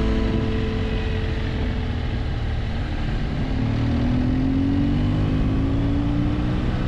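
Motorcycle engine running under way over a steady rushing noise. Its pitch sags slightly in the first half, then climbs steadily from about halfway as the bike accelerates.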